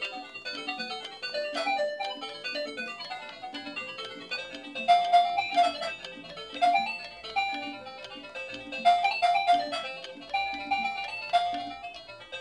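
Doraemon toy cash register playing one of its built-in electronic songs: a simple melody of short notes over a repeating accompaniment.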